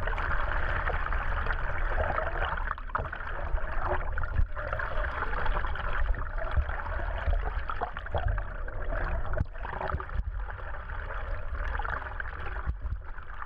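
Sea water rushing and gurgling along a boat's hull, over a steady low rumble of wind on the microphone, with a few brief knocks.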